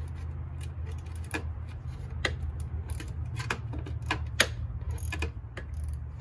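Irregular small metal clicks and clinks from hands working on the scooter's front fork hardware, over a steady low hum.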